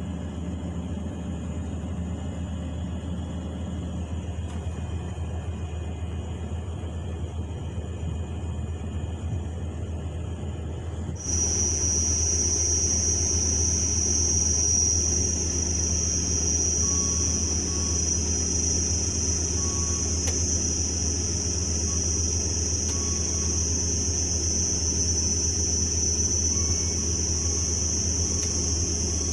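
Excavator diesel engines running with a steady low drone. About eleven seconds in, the sound abruptly grows louder and a steady high-pitched hiss joins it.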